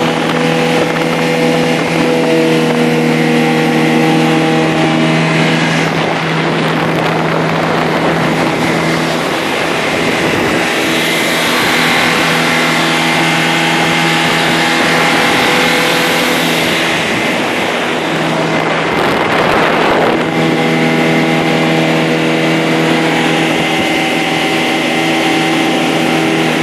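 Motorboat engine running steadily at speed with water rushing past the hull. From about six seconds in, the engine tone sinks under the loud rush and hiss of spray from the hull, and it comes through clearly again about twenty seconds in.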